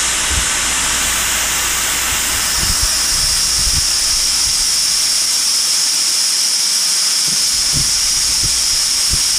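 Compressed air hissing steadily through the hose into a single-seater race car's air jacks as they lift the car. The hiss grows a little stronger after the first couple of seconds, with a few faint low knocks under it.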